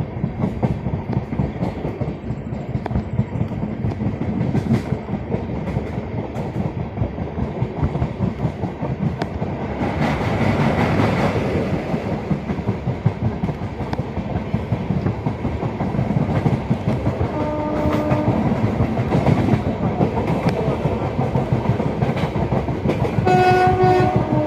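Train wheels clattering fast over rail joints with a steady rumble, growing louder for a couple of seconds about ten seconds in. A locomotive horn sounds briefly about seventeen seconds in and again just before the end.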